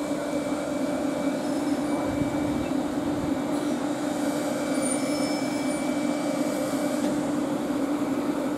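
Class 350 Desiro electric multiple units coming into the platform: steady rolling of wheels on rail with a steady hum from the train's electric traction equipment.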